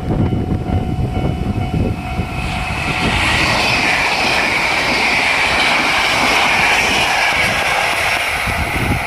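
789 series limited express electric train passing through the level crossing at speed: a rushing hiss builds about two seconds in, holds, and eases off near the end. Wind buffets the microphone, and the crossing alarm rings steadily underneath.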